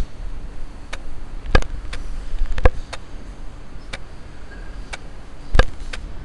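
Irregular sharp clicks and taps, about ten of them, over a quiet background: a small handheld camera being handled close to its microphone. The loudest taps come about a second and a half, two and a half and five and a half seconds in.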